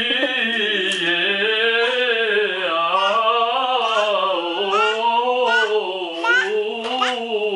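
A woman's voice singing a slow, wordless melody, the pitch rising and falling in long unbroken waves. A few short, high rising squeaks come through over it a little past the middle.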